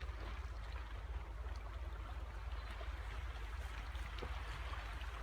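Water trickling and lapping along a shoreline, as a steady noisy wash, with a steady low rumble underneath.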